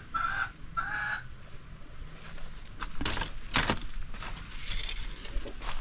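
Domestic turkey calling in a short series of repeated notes during the first second. About three seconds in come two brief loud noises, half a second apart.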